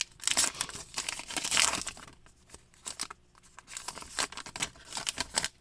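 Trading card pack wrapper being torn open and crinkled by hand, in irregular crackling bursts.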